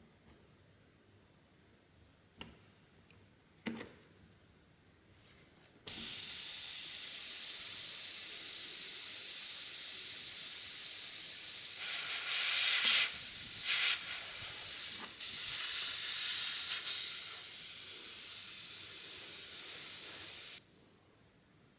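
Pressurised air hissing, starting suddenly about six seconds in, surging unevenly in the middle and cutting off suddenly near the end.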